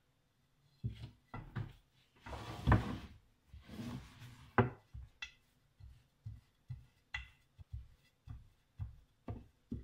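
A long, thin wooden rolling pin rolls back and forth over starch-dusted baklava dough on a wooden board: two longer swishing strokes in the first half, and a string of light wooden knocks as the pin is set down and shifted, the loudest about three seconds in.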